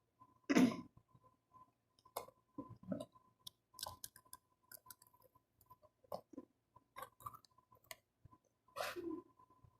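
A person chewing food close to the microphone: irregular wet mouth clicks and smacks, with louder mouthful sounds about half a second in and near the end.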